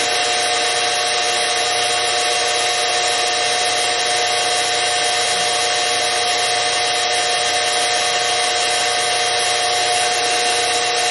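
Sieg X2 mini mill running steadily with a constant whine, its end mill taking a light, hand-fed cut in aluminium plate.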